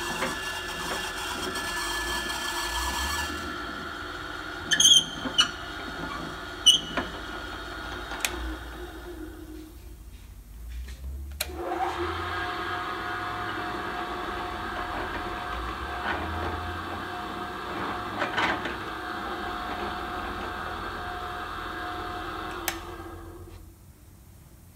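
Two Buffalo bench drill presses with 1.3 HP three-phase motors running in turn: the first runs, with a few sharp clicks, and is switched off and spins down about ten seconds in. The second starts about a second and a half later, runs steadily, and spins down near the end.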